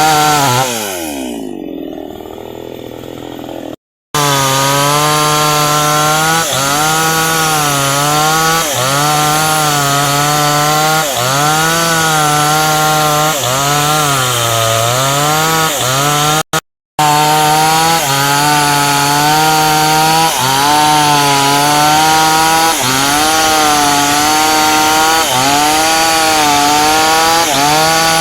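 Chainsaw running at high speed while cutting into hardwood; its pitch sags and recovers about every second and a quarter as the chain loads up in the cut. In the first few seconds the pitch swings up and down. The sound cuts out completely twice for a moment, about four seconds in and just past the middle.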